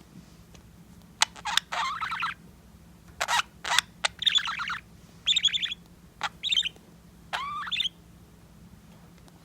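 Budgerigar chattering: a string of short chirps and clicks mixed with brief warbling bursts, ending near the end with a longer call that rises and falls.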